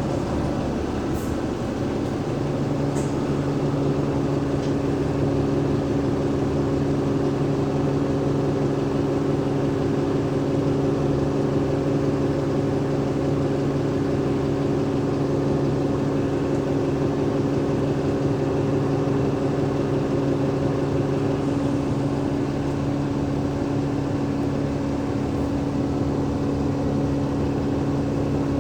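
Alexander Dennis Enviro500 MMC double-decker bus running at a steady speed, its Cummins ISL 8.9-litre diesel and ZF Ecolife automatic gearbox giving a steady drone made of several held tones over a road rumble. One of the tones drops out about two-thirds of the way through.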